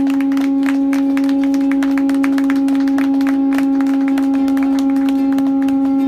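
Conch shell trumpet (Hawaiian pū) blown in one long, steady, unwavering note, with scattered light clicks over it.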